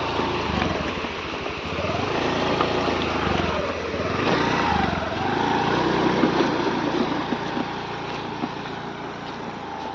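Small motorcycle engine running, its pitch rising and falling a few times as the throttle changes, with a steady rush of road and wind noise.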